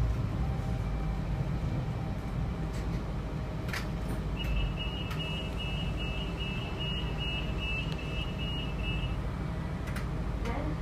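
Diesel railcar engine running with a steady low drone while the train stands at a station, heard from inside the carriage. About four seconds in, a high electronic beeping tone sounds for about five seconds.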